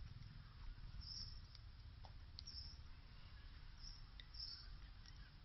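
Faint outdoor ambience: a steady low rumble with short, high chirps now and then, and a few faint clicks.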